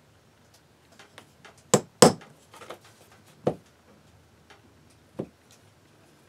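Light hammer taps on a fine-pointed centre punch, punching small indents into a steel plate: two sharp strikes close together about two seconds in, another about a second and a half later, and a last one near the end, with small clicks of handling between.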